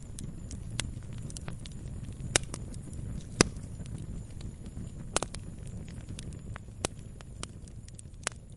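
Wood campfire crackling: irregular sharp pops and snaps over the low, steady rumble of the burning fire, with the loudest pop a little over three seconds in.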